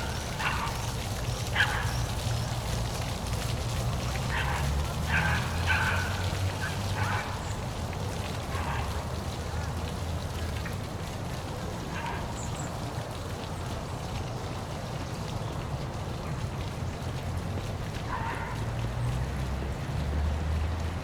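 Park waterfall rushing steadily, with a low rumble under the splashing water. Short animal calls sound several times in the first seven seconds, then once or twice later on.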